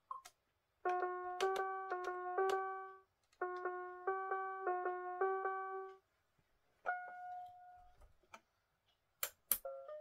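Pink 37-key toy electronic keyboard playing a short electronic tune through its small built-in speaker, with a steady low note under repeated higher notes. The phrase plays twice, then comes a single held tone. Near the end there are two sharp clacks of its hard plastic body as it is handled.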